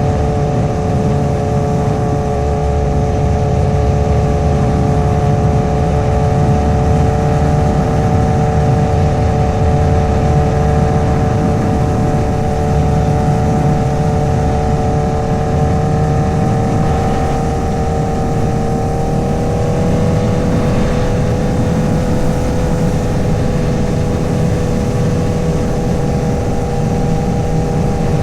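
Honda CBR1000RR's 999cc inline-four engine and exhaust cruising at a near-steady engine speed, under heavy wind and road noise. The engine note dips slightly about two-thirds of the way through, then settles a little higher.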